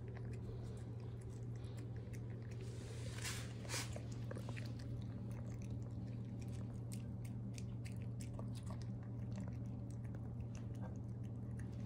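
A three-month-old Maltese–Shih Tzu puppy eating from a ceramic bowl: a steady run of small, quick chewing and crunching clicks over a steady low hum.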